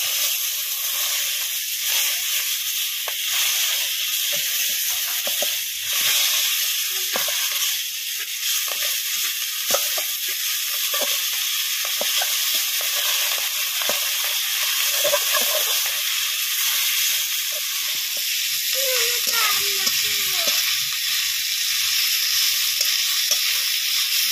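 Hilsa fish head sizzling steadily as it fries in hot oil in a kadai, with a metal spatula scraping and knocking against the pan as it breaks the head apart.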